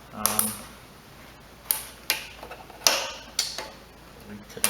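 Irregular clicks and light knocks of small parts and tools being handled during hand reassembly of a mower engine's carburetor and fuel line, about half a dozen sharp clicks spread across a few seconds.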